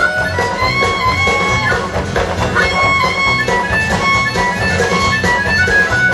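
Music: an instrumental tune with held melody notes over a steady beat.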